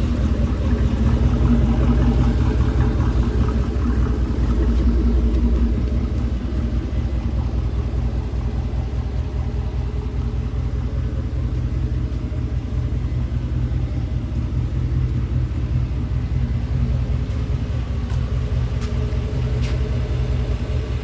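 OBS pickup engine running, a little faster for the first few seconds and then settling to a steady idle, with the clicking the owner takes for a lifter tick.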